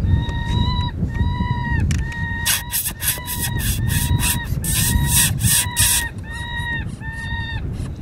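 Predator call sounding a repeated distress cry: drawn-out, evenly pitched notes, about one a second, with a raspy hiss mixed in through the middle. A low rumble runs underneath.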